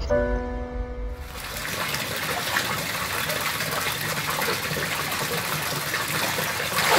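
A short stretch of music ends about a second in, then swimming-pool water sloshes and splashes steadily as a person wades and moves through it.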